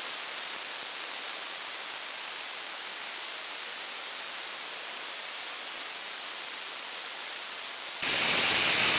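Compressed air hissing steadily out of an airline's quick-release coupling as it is blown onto an air tester's mirror, to test the shop air for oil and water contamination. The hiss gets much louder about eight seconds in.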